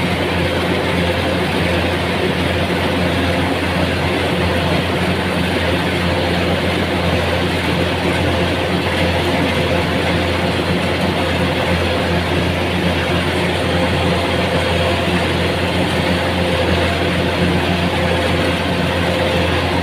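An engine running steadily at a constant speed, with a strong low hum and no change in pace.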